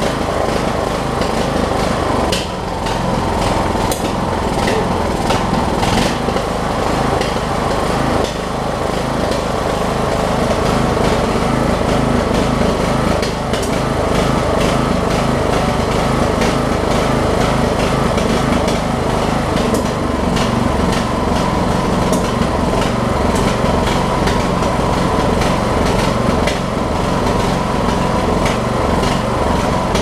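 Craftsman LT1000 riding mower engine running steadily, with brief drops in level about two and eight seconds in.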